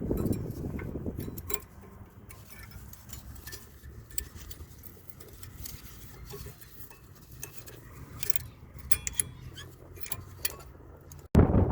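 Light metallic clicks and clinks of new front disc brake pads and their steel clips being worked into the caliper bracket. Wind rumbles on the microphone for the first second or so, and a single loud thump comes near the end.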